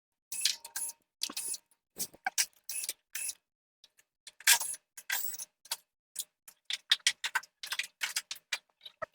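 A string of short clicks and rattles, a few a second with brief pauses, from screws and sheet-metal panels being worked as a heat pump's control box cover is taken off.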